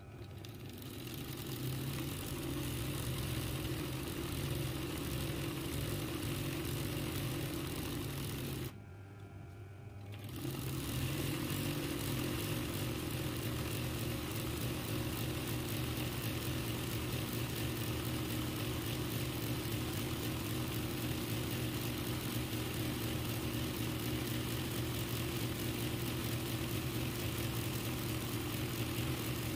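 RANEW 130 zigzag sewing machine running steadily during free-motion embroidery stitching. It builds up at the start, stops abruptly for about a second and a half about a third of the way in, then starts again and runs on evenly.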